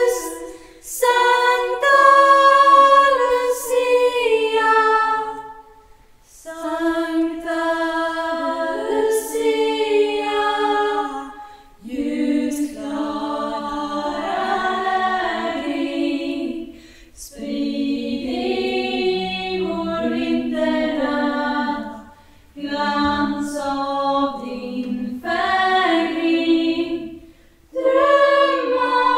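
Female Lucia choir singing a cappella in a church, in long phrases separated by short breaks about every five seconds.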